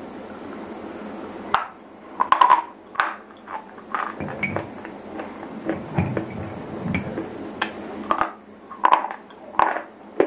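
Biting and chewing a chalky white shele stone right at a clip-on microphone: after a short lull, an irregular run of sharp, crisp crunches and crumbling clicks.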